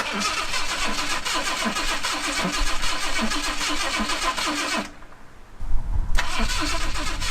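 Jaguar XJ6's fuel-injected straight-six being cranked over by the starter without catching: a steady, even cranking rhythm for about five seconds, a brief pause, then a second crank near the end. The engine turns over and gets spark but will not fire, with the battery on the low side.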